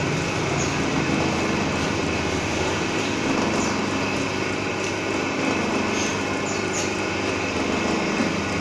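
A steady mechanical hum, like a small motor or machine running, unchanging throughout.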